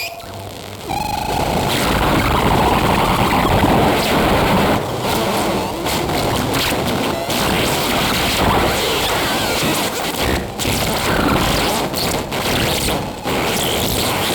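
Dense, noisy electroacoustic texture filling the whole range from deep rumble to hiss, cut by several sudden brief dropouts.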